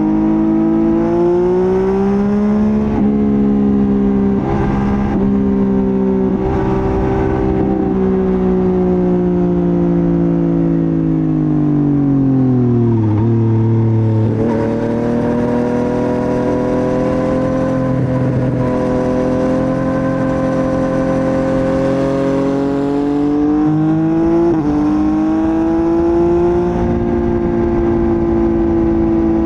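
Motorcycle engine running on the road, its note rising and falling with the throttle. It drops steadily as the bike slows about a third of the way in, climbs again and holds steady, then steps up quickly near the end.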